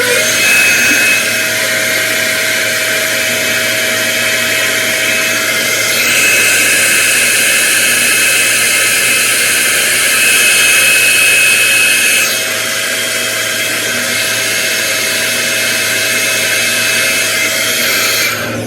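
Handheld hair dryer running steadily, a blowing rush with a thin motor whine, a little louder for several seconds in the middle.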